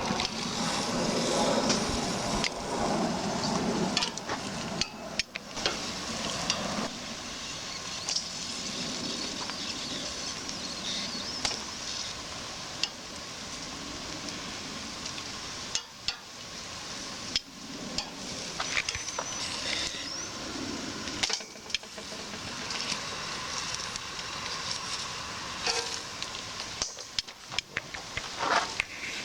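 Chimayo chile pods roasting: a steady sizzling hiss broken by scattered sharp pops and crackles as the skins burst, the pops coming more often near the end.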